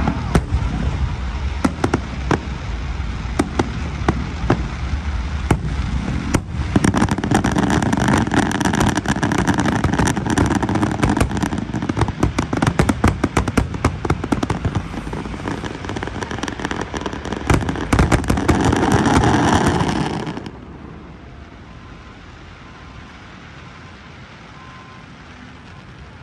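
Aerial fireworks display: shell bursts banging in quick succession, thickening a few seconds in into a dense, loud finale barrage. The barrage cuts off abruptly about three quarters of the way through, leaving only faint background noise.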